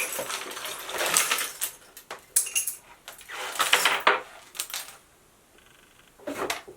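Tiny miniature-house kit pieces clattering and rattling as they are tipped out and spill, in several rushes over about five seconds, then a short rattle near the end.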